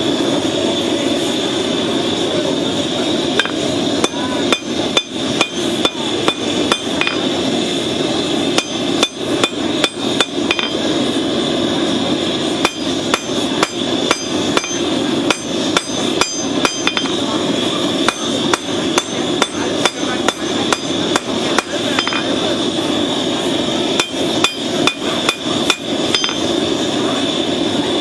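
Hammer blows on red-hot steel on an anvil, in runs of about two strikes a second with a short metallic ring after some blows, over the steady roar of the forge fire. This is a horseshoe-rasp blade being drawn out at forging heat.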